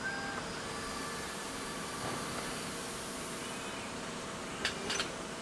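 Steady factory-floor machinery noise, with faint held tones over it and a few sharp clacks near the end.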